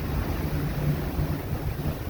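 Steady low drone of a boat's engine, with wind buffeting the microphone and the wash of rough sea.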